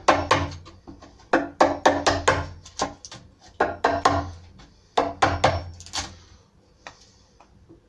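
Chisel being struck repeatedly, chopping a recess into the edge of a wooden door: sharp woody knocks at an uneven two to three a second, each with a short ring. They thin out to a few lighter taps after about six seconds.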